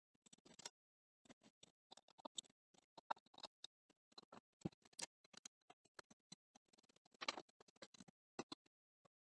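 Near silence broken by faint, irregular clicks, taps and light scrapes of hand tools and small metal parts being handled on a band saw, with a slightly louder cluster about seven seconds in.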